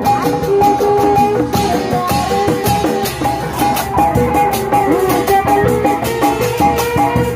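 Live Sundanese benjang ensemble music: an ornamented lead melody of held notes over a steady, busy drum rhythm.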